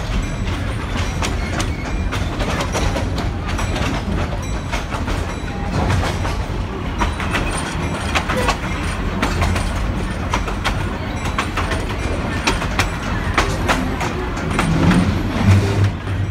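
Antique train rolling slowly along the track, heard from aboard: a steady low rumble of the wheels on the rails with irregular clanks and clicks from the cars.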